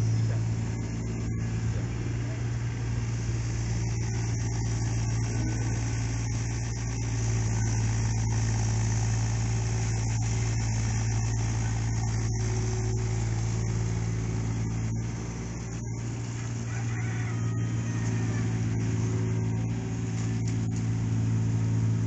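Amphibious mini excavator's diesel engine running steadily as the machine digs, a low even hum whose loudness dips briefly a few times.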